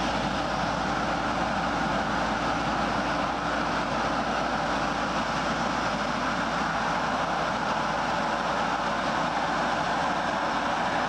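John Deere tractor running steadily with its front brush sweeper and towed nut harvester working through a windrow of nuts and debris, an even mechanical rattling din.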